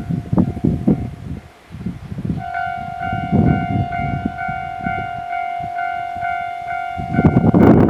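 Japanese railway level-crossing warning alarm starting about two and a half seconds in: an electronic clanging at two pitches, pulsing about twice a second. Near the end a train's loud rushing noise rises over it. Low gusts of wind on the microphone come before the alarm.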